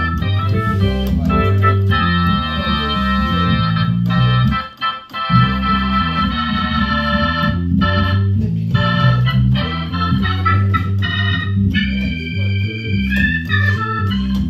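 Crumar Mojo Dual clonewheel organ playing blues chords over a low bass line, heard through a Motion Sound Pro 145 rotary speaker with a Fender Rumble 500 bass amp adding low end. The playing breaks off briefly about five seconds in, then carries on.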